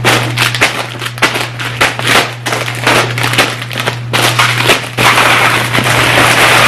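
Crinkly plastic wrappers of Halloween chocolates and snack packets rustling and clattering as they are handled and sorted into baskets. It becomes a continuous louder rush of crinkling about five seconds in.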